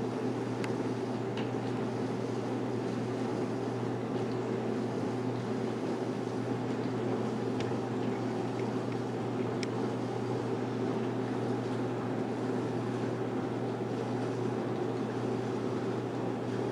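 Steady low hum of a saltwater aquarium's circulation pump, with a few faint ticks.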